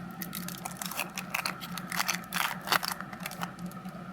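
A trading-card pack wrapper being torn open and the cards handled: a run of crinkling, tearing and sharp clicking, busiest about two to three seconds in.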